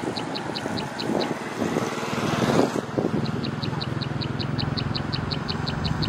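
A rapid, regular high chirping, about four to five a second, which stops for a few seconds and then resumes. Under it is the noise of a passing vehicle, swelling about two and a half seconds in, and a steady low engine hum.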